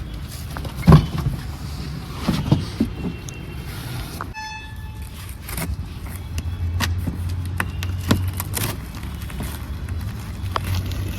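A motor vehicle engine running under street noise, with several knocks, the loudest about a second in, and a short beep about four seconds in.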